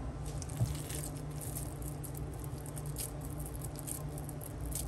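Hands molding raw ground-meat meatballs and setting them down: soft, irregular little pats and clicks over a steady low hum.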